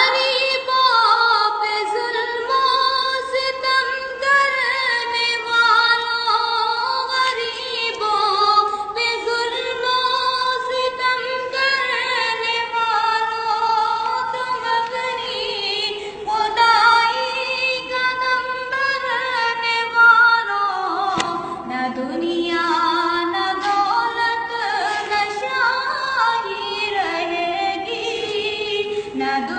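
A woman's solo voice singing a naat, an Islamic devotional song in praise of the Prophet, in a long, ornamented melody with no instruments.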